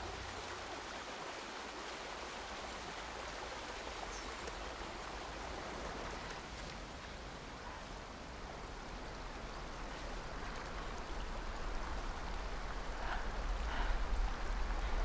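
A small moorland stream babbling steadily over stones. Near the end a low wind rumble builds underneath it.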